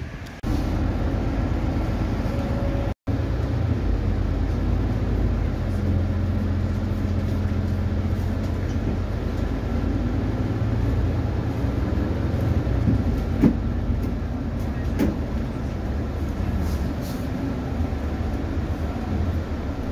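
Interior of a moving city bus: a steady low engine drone and road rumble, with two short knocks or rattles in the second half.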